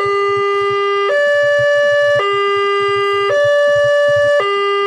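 Railway level-crossing warning alarm sounding while the crossing is closed for a train. It is an electronic two-tone signal that alternates a lower and a higher tone about every second, over a fast low pulsing.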